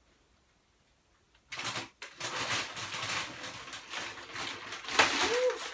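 A plastic bag of frozen chicken nuggets being handled, crinkling and rustling, starting about a second and a half in, with a sharp knock about five seconds in.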